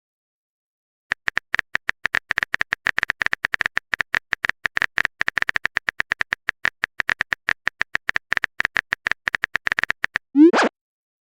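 Rapid, steady phone-keyboard typing clicks for about nine seconds, then a short rising swoosh near the end: the sent sound of a text message.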